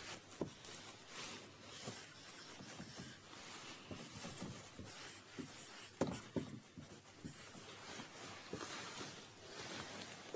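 Faint scratching of a pen or marker drawing a circuit diagram by hand, in uneven strokes, with small knocks and a sharp tap about six seconds in.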